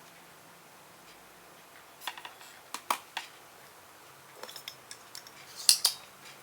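Irregular small, sharp clicks and taps of hand tools being handled at a repair bench while a capacitor is removed from a TV circuit board, scattered through the middle with the loudest click near the end.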